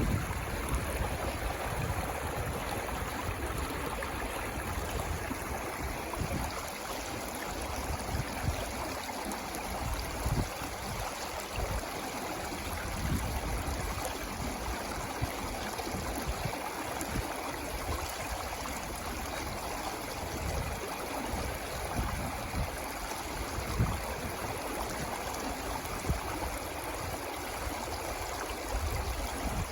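Water flowing in a stream, a steady rushing and gurgling, with a few brief low bumps scattered through it.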